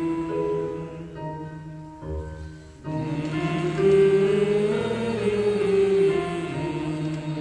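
A group of voices singing long, held and gently sliding notes in vocal warm-up exercises, with musical accompaniment. The singing thins out briefly about two seconds in, then comes back louder.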